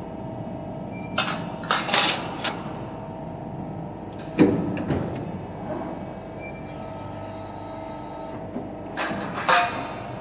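Hydraulic upstroke press brake running with a steady hum, with sharp metallic clicks and clanks from the steel sheet being handled and bent. The loudest is a single knock a little over four seconds in, and another group of clanks comes near the end.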